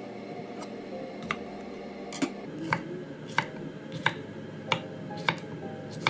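Light, sharp taps of kitchenware on a hard surface, about eight in an even run, roughly one every two-thirds of a second.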